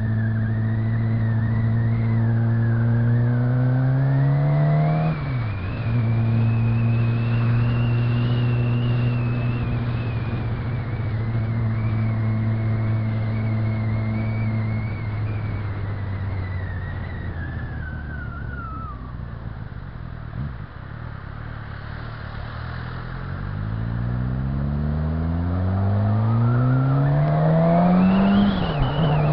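Suzuki GSX-R600 inline-four sportbike engine under way: it revs up through a gear with a rising pitch, drops sharply in an upshift about five seconds in, and holds a steady note. It then eases off, falling in pitch and quietening around twenty seconds in, before revving up through a gear again with another upshift near the end.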